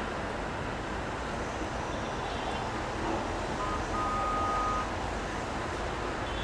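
Rainy city street ambience: a steady wash of traffic and rain noise, with a short steady tone sounding for about a second near the middle.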